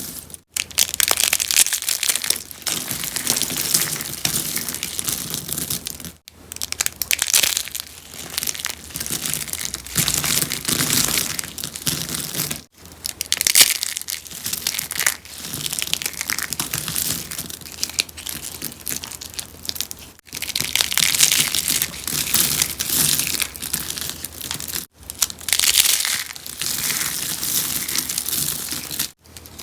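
Rose-shaped soap flowers being crushed, a dense crisp crackling crunch that runs in stretches of several seconds with brief breaks between them.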